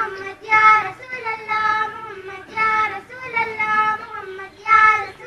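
A young girl singing an Urdu naat, a devotional song in praise of Madina, in a slow melody of long held notes.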